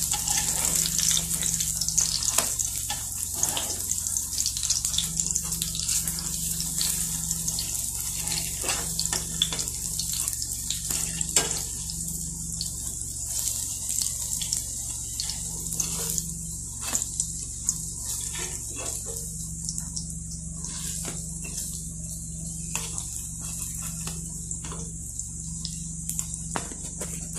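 Batter pancakes shallow-frying in hot oil in a pan: a steady high sizzle with scattered pops and crackles, easing slightly in the second half.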